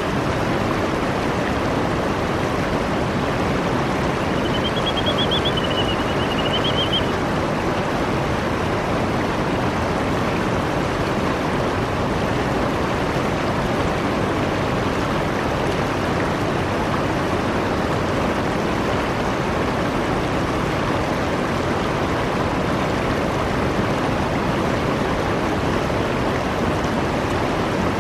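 Steady rush of fast river water running over shallow rocks. About four seconds in, a faint, high, warbling bird call lasts roughly three seconds.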